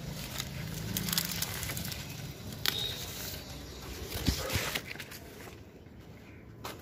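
Dry rustling and crackling of corn leaves and husks as baby corn ears are snapped off the stalk, with two sharp snaps in the middle. It quiets down over the last second or so.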